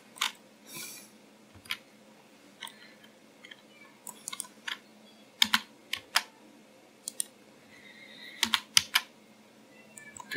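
Computer keyboard keys being pressed: irregular single clicks with a few quick clusters.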